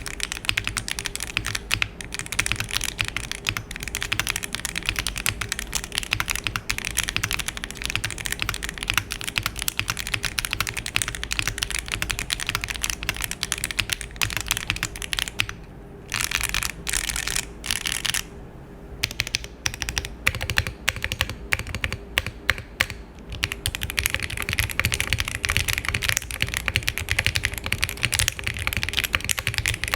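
Akko Matcha Green V3 Pro switches being typed on in a foamed mechanical keyboard, a muted, deep clack. Fast continuous keystrokes break off twice past the middle, then pick up again in a new build with cork foam.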